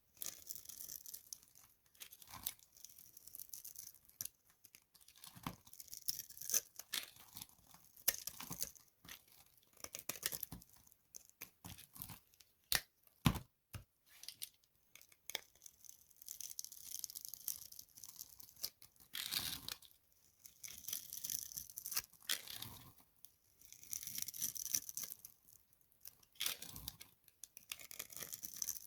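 Dry soap being crushed, with crisp crunching and crackling in a run of separate bursts broken by sharp snaps.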